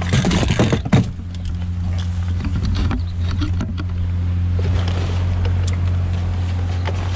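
Backpack straps and plastic buckles rustling and clicking as a heavy hiking pack is unbuckled and taken off, mostly in the first second and again about three seconds in, over a steady low hum.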